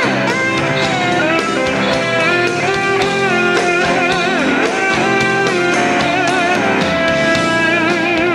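Live blues-rock electric slide guitar solo over a band with drums: sustained notes that glide between pitches and waver with wide vibrato.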